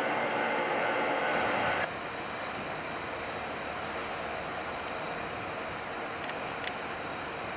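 JR Freight EF210 electric locomotive hauling a freight train at low speed: steady rumble of wheels on rail mixed with a hum of steady tones from the locomotive. About two seconds in the sound drops abruptly to a quieter, steadier running noise as the locomotive comes head-on, with a single faint click near the end.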